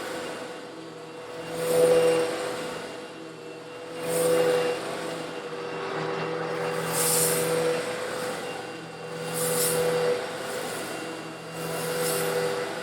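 Eureka vacuum cleaner running steadily with a constant motor hum, while coarse stone granules are sucked up in surges of hissing, gritty rush that swell and fade about every two to three seconds.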